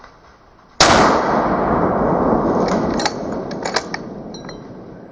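A single hunting rifle shot about a second in, its report rolling on in a long echo that slowly dies away. A few sharp clicks come in the tail of the echo.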